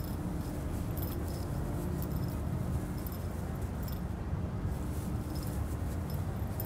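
Small metal tags on a Yorkshire terrier's collar jingling in short, irregular bursts as the dog rolls and wriggles on its back in the grass, over a steady low rumble.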